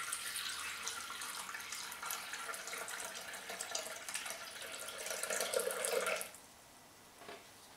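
Water poured from a glass bottle into the stainless steel mixing bowl of a Thermomix TM5: a steady splashing trickle that stops abruptly about six seconds in.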